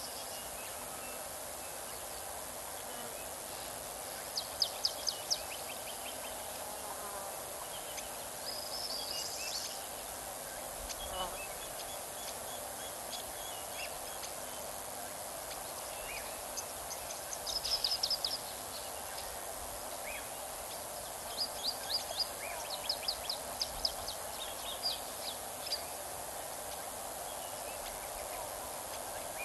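Steady outdoor background noise, broken several times by quick series of short, high-pitched chirps.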